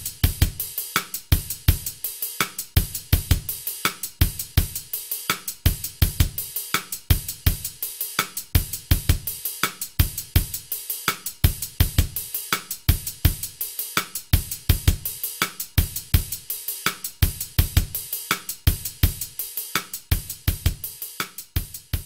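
Music with a fast, steady drum-kit beat: kick drum, snare, hi-hat and cymbals, with no voice.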